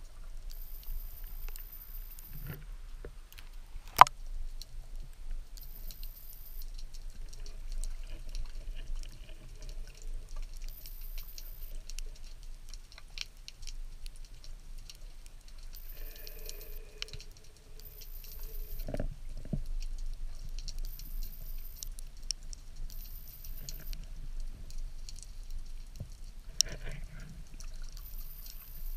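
Underwater ambience heard through a camera's waterproof housing: a steady low rumble with scattered crackling clicks, and one sharp, loud knock about four seconds in.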